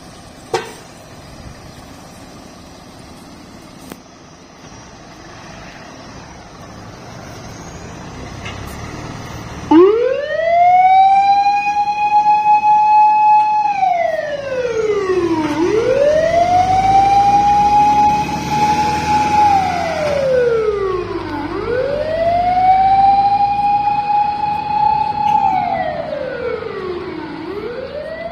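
Fire rescue truck's siren starting about ten seconds in: a long wail that rises, holds, then slides down, repeating about every six seconds. Before it, the truck's engine runs and grows louder as it pulls out.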